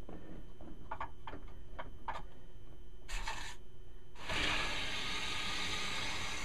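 A washing-machine supply valve's stem squeaking in a few short turns, then a short hiss and, from about four seconds in, a steady rush of water flowing through the valve into the supply line as it is opened fully.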